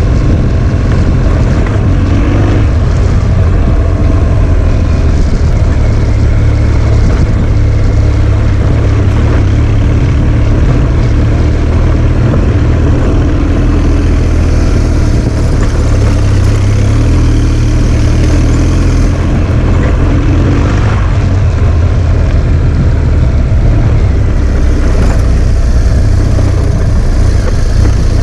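Adventure motorcycle engine running on a rough dirt track, a steady loud rumble whose pitch rises and falls a little with the throttle.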